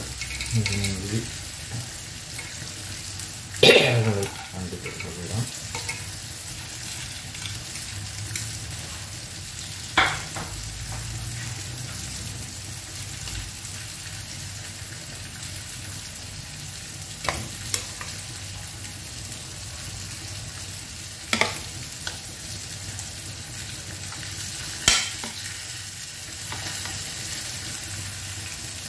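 A steady sizzling hiss from the stovetop, broken about five times by the sharp knock or scrape of a metal ladle or spoon against a stainless-steel pot while biryani is layered and stirred.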